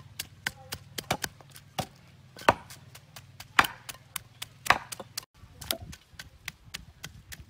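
A wooden pestle pounding garlic and chilies in a stone mortar: repeated knocks, with three heavy strikes about a second apart in the middle. The pounding breaks off about five seconds in, and lighter clicks follow.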